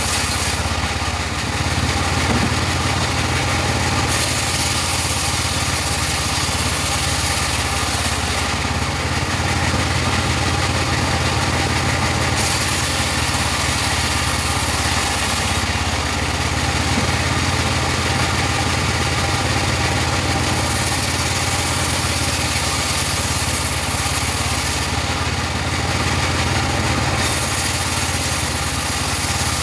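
Engine-driven portable sawmill running steadily with a constant low engine hum, while a high hiss swells and eases every few seconds.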